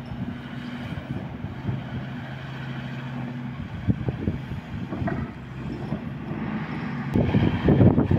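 A steady low engine hum with wind rumbling on the microphone. The hum fades after a few seconds, and the wind gusts louder near the end.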